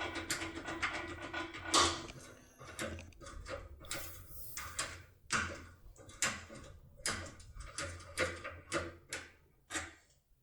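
Irregular metallic clicks and taps from a locksmith's impression pick being worked inside a Sescuremme K3 cylinder lock, with one louder knock about two seconds in.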